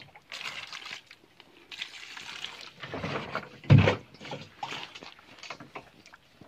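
Water splashing as it is poured from a plastic jerrycan into a plastic basket, then swished by hand, with a single loud thump a little past the middle.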